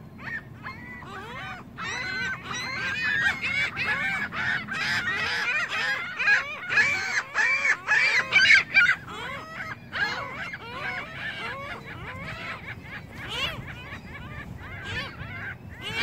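A flock of gulls calling: many short rising-and-falling cries overlapping, thickest and loudest in the middle.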